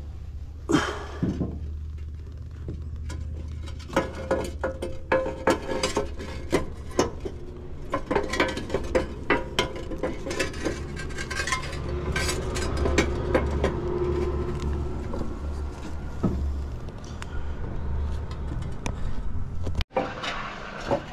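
Clay roof verge tiles clinking and knocking against each other and the wooden batten as they are handled and set on the roof edge: a long run of sharp clicks and knocks over a steady low rumble.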